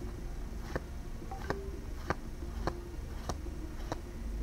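Trading cards being flipped one at a time through a freshly opened booster pack, a short click with each card about every two-thirds of a second, over a faint steady hum.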